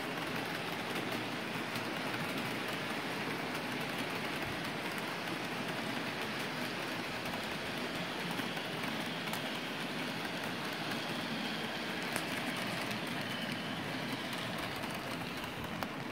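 Model freight train rolling past on its track: a steady rolling rattle of small metal wheels on the rails, with faint light clicks.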